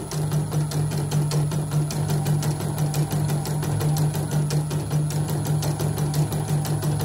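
Portable Yoko (CNY-clone) embroidery machine with its covers off, stitching a design: a steady motor hum under a rapid, even clatter of needle strokes. It runs smoothly, with no sign of trouble.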